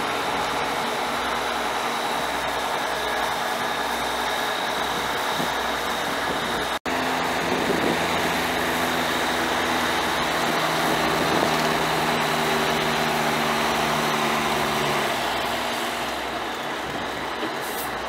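International 7.6-litre inline-six turbo diesel of a truck running steadily at idle, with a thin high whine over it. The sound cuts out for an instant about seven seconds in.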